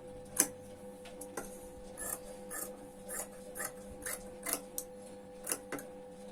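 Tailor's scissors snipping through cloth, about a dozen irregular sharp clicks at roughly two a second, trimming a seam allowance down to about a quarter inch. A steady faint hum runs underneath.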